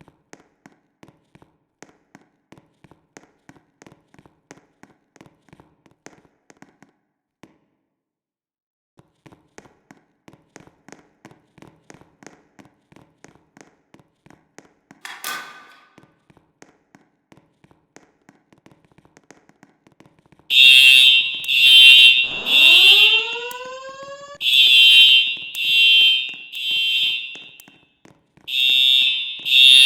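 Faint rapid ticking for about twenty seconds, then a building fire alarm starts: loud, high-pitched tone pulses in groups of three with a pause between groups, the temporal-three evacuation pattern, sounding in a test. A rising tone glides up under the first group of pulses.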